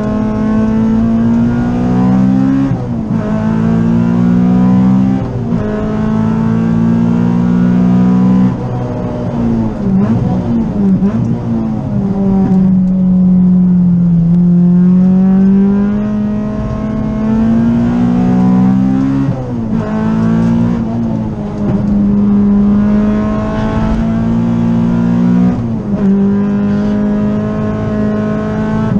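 Honda B18C Type R 1.8-litre four-cylinder VTEC engine heard from inside the cabin of an EG Civic on track. It revs up hard under acceleration, its pitch climbing and dropping sharply at each upshift, and it falls away twice between the pulls.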